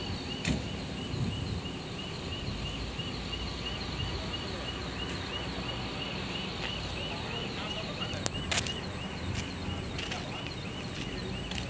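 Diesel power pack of a heavy self-propelled modular transporter running steadily as it creeps forward under a load, with a short high chirp repeating about three times a second over it. A few sharp clanks about eight seconds in.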